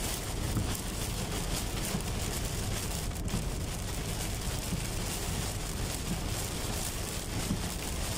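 Heavy rain hitting a car's windshield and roof, heard from inside the moving car, over a steady low rumble of road and engine noise.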